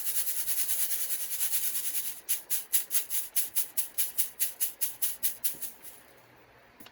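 Dry, unwashed gold pay dirt being shaken through a classifier sieve: gravel and grit rattling in quick, even strokes, about five or six a second, that stop about six seconds in.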